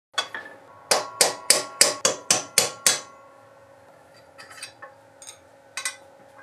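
A hammer tapping metal: one blow, then eight quick even blows at about three a second, each leaving a lingering metallic ring. After that come a few lighter clicks of metal parts being handled, with one sharper click near the end.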